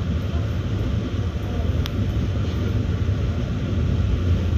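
Passenger train in motion, heard from inside the carriage: a steady low rumble of wheels on rails, with one sharp click about two seconds in.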